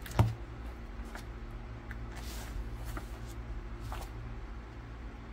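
Paper pages of a model kit's instruction booklet being handled and turned, with one sharp thump just after the start, a brief rustle about two seconds in and a few faint clicks, over a steady low hum.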